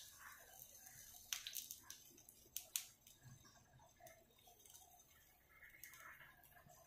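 Faint crackling of eggs frying in oil on a flat pan: a soft hiss with scattered sharp pops. Near the end, a trickle of oil is poured into the pan.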